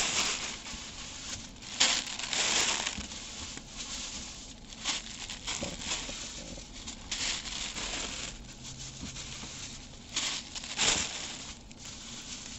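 Plastic packaging crinkling and rustling in irregular bursts as hands dig through a box of plastic-wrapped yarn and pull one out.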